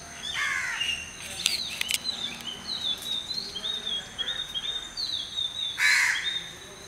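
Crows cawing, with a harsh caw near the start and a louder one about six seconds in. Between them comes a quick run of high chirping notes from other birds.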